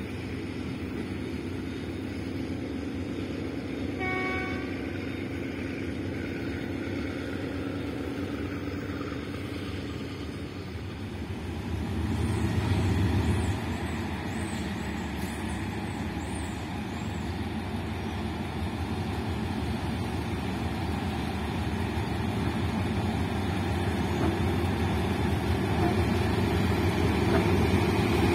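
Diesel locomotive engine running, with a short horn toot about four seconds in. The engine grows louder briefly around twelve seconds in and again toward the end.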